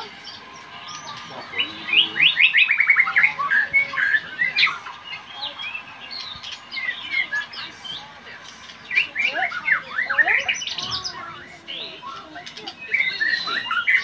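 Caged white-rumped shama singing in varied phrases, with loud runs of rapid notes about two seconds in, again around nine to ten seconds, and near the end.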